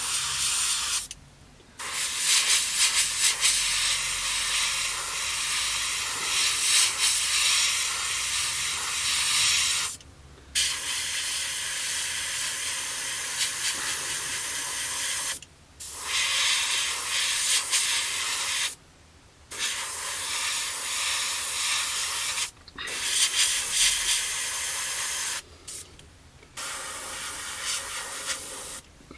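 Airbrush spraying paint, a steady hiss of air and paint that cuts off for short pauses several times between passes.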